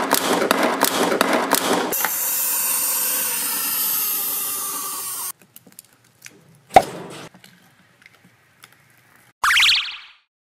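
A toy gumball machine's knob being cranked, a quick run of ratcheting clicks and clatter as a plastic ball rolls out, then a few seconds of steady hiss. After that come soft clicks and rustles of plastic toy tongs in foam beads, one sharp click a little past the middle, and a short rising whoosh near the end.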